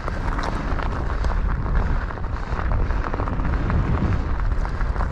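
Wind rumbling on the microphone, with scattered short crunches on snow.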